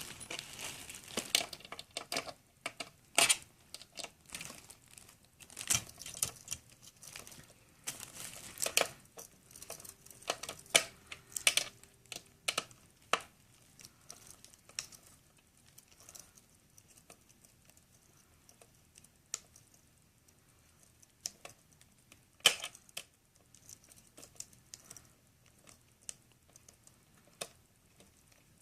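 Irregular clicks, scrapes and rustles of a screwdriver and hands working on an Xbox 360's casing to get its screws out. The handling is busy through the first half and thins out to occasional clicks later.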